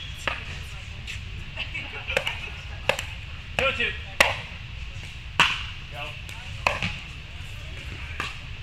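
Pickleball paddles striking a plastic pickleball: a string of sharp pops about a second apart, the loudest about four seconds in as the serve is hit, followed by the returns of the rally.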